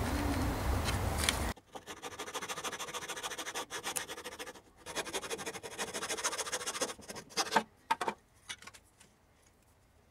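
Small red-framed hand saw cutting through a thin strip of wooden moulding in quick, even strokes, about four or five a second. Near the end come a few sharper knocks, then the sawing stops.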